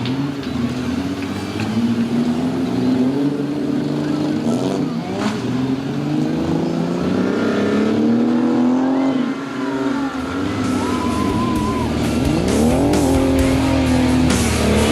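Demolition derby car engines running and revving, their pitch rising and falling. Rock music comes in over the last few seconds.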